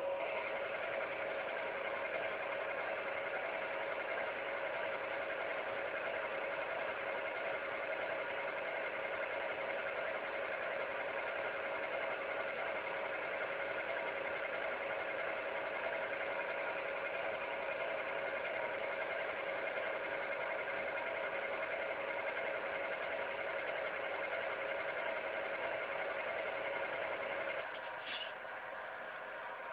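Model diesel locomotive's sound decoder playing a steady prime-mover idle through its small speaker, a constant hum of several even tones. About two seconds before the end the sound drops a little, with a short high chirp just after.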